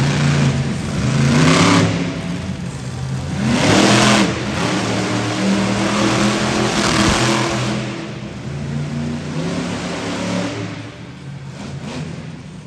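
Bone Crusher monster truck's engine revving hard in repeated surges, the pitch climbing with each rev, then settling to a lower, quieter run after about eight seconds.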